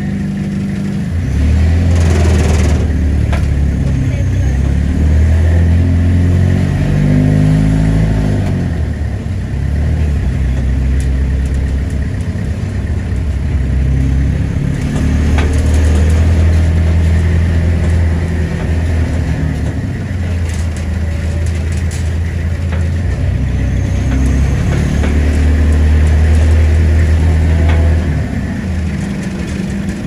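Vehicle engine running under way, its pitch rising as it speeds up a few seconds in, then dropping back, and swelling again later before easing off near the end.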